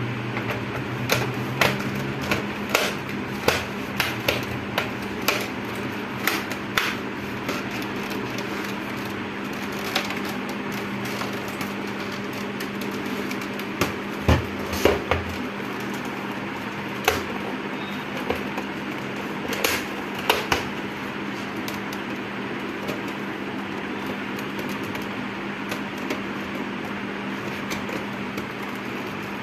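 Plastic snap clips of an HP LCD monitor's casing clicking into place as the back cover and bezel are pressed together: a string of sharp clicks over the first several seconds, a few more in the middle, over a steady background hum.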